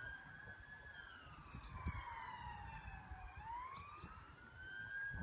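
A faint siren wailing. Its pitch sinks slowly for about three seconds, then climbs back up near the end.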